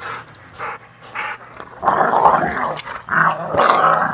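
Dogs play-fighting and growling at each other. A few short growls at first, then two long, loud bouts of growling from about two seconds in.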